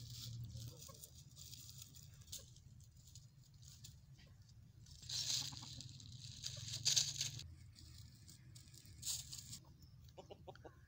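Chickens clucking quietly, with a quick run of clucks near the end, among several brief bursts of rustling noise, the loudest about halfway through and again a couple of seconds later.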